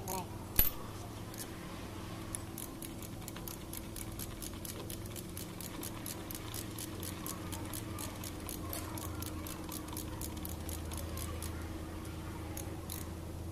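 Light metallic clicks, several a second, from hand tools and parts being handled while the oil pump is fitted to the front of an Isuzu 4HG1 diesel engine block, with a sharper click about half a second in. A steady low hum runs underneath.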